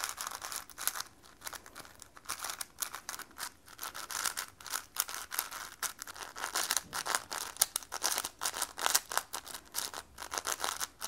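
Layers of a MoYu AoChuang WR M magnetic 5x5 speedcube being turned rapidly by hand: a quick, irregular run of soft plastic clicks and swishes, with the buttery smoothness of the turning audible. Near the end, the older AoChuang GTS-M 5x5 is turned instead.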